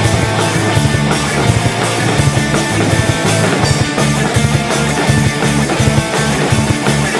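Rock music soundtrack with guitar and a steady drum beat.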